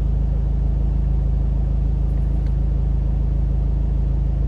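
Car engine idling, heard from inside the cabin as a steady low drone.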